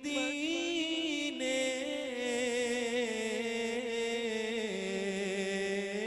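Male voice singing an Urdu naat, drawing out a long sustained, slowly bending note between lines of the lyric.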